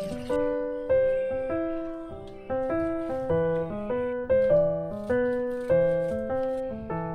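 Background piano music: a light melody of single notes played at an even pace. A running tap is heard for a moment at the start and cuts off.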